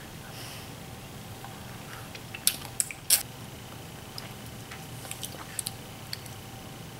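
Lemon wedges being sucked and chewed: short wet mouth smacks and squelches, the three loudest coming close together between about two and a half and three seconds in, then fainter ones around five to six seconds in, over a faint steady hum.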